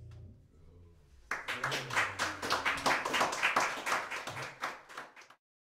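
A piano's last held chord is cut off early on. From about a second in, a small group applauds with quick, irregular claps, and the applause stops abruptly near the end.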